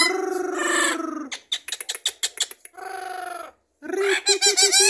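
Blue-fronted amazon parrot imitating a hen. It gives a drawn-out wavering call, then a quick run of clicks and a short call, then a fast pulsed clucking series near the end.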